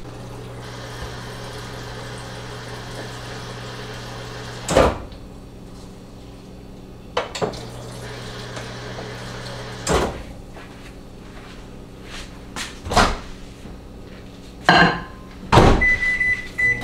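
Microwave oven running with a steady low hum, with several sharp knocks and clicks of kitchen handling. It ends in a high electronic beep lasting about a second.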